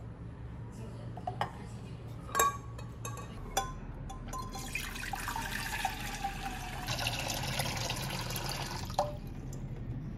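A few light knocks of eggs set into a small saucepan, then tap water running into the pan for about four seconds before the tap is shut off.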